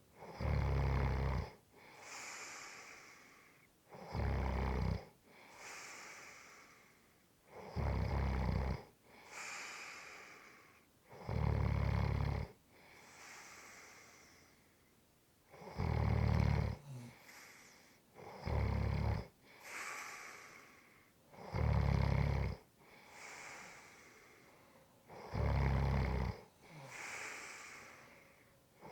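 A person snoring in a steady rhythm: a loud snore on each in-breath about every three and a half to four seconds, eight in all, each followed by a softer, airy out-breath that fades away.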